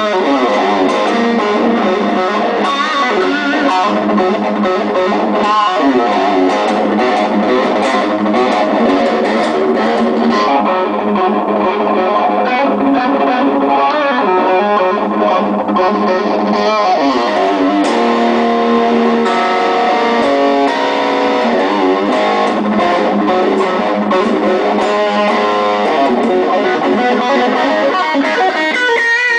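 Custom-built Ibanez PGM electric guitar being played: a continuous stream of picked notes and chords, with a few longer held notes a little past halfway.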